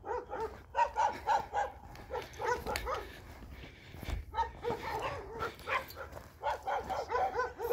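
A dog barking and yipping over and over in short, pitched calls.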